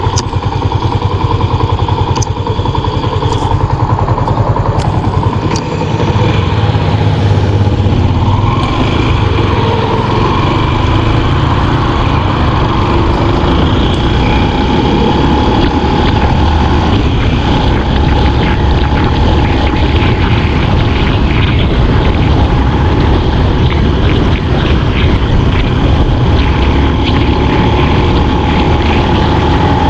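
Motorcycle being ridden on a highway, its engine running steadily under road and wind noise; it gets louder about six seconds in as the bike picks up speed.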